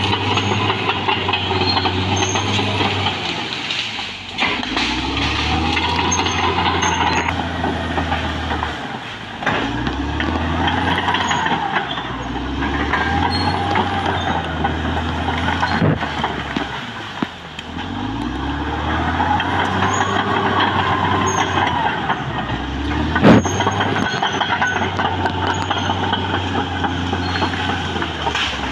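Caterpillar D6R XL crawler dozer's diesel engine working hard, its revs swelling and sagging again and again as the dozer pushes into brush and trees. A single sharp crack stands out about three-quarters of the way through.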